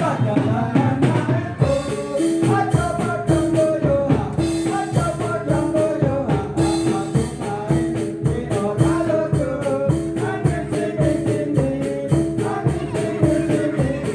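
Music with a fast, steady percussion beat, a short note repeated in a regular pattern, and a melody that bends in pitch over it.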